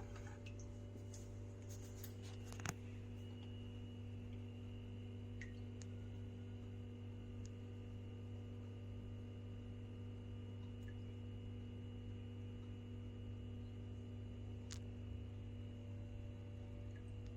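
Steady low electrical hum with a few faint clicks and one short knock about three seconds in.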